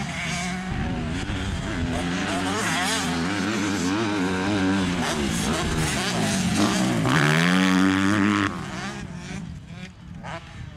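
Motocross bike engines revving up and down, the pitch rising and falling over and over. About seven seconds in one engine climbs to a loud, high rev that drops off suddenly a second and a half later.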